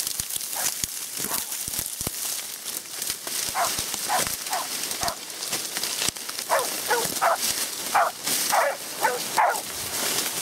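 Hog-hunting dog barking again and again, short calls that fall in pitch. They start a few seconds in and come faster and louder in the second half, the dog baying at a hog it has found. Dry reeds crackle and rustle throughout as someone pushes through them.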